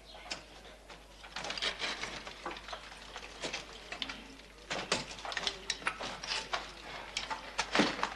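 Irregular clattering knocks and scrapes of rubble and broken timber being climbed over, with the loudest knocks near the end.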